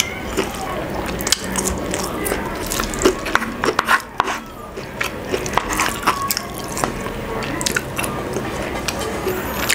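Wooden spoon and wooden fork pulling apart saucy braised pork hock (pata tim) on a wooden plate: many short wet clicks, sticky squelches and light knocks of the utensils against the plate, with a brief lull about four seconds in.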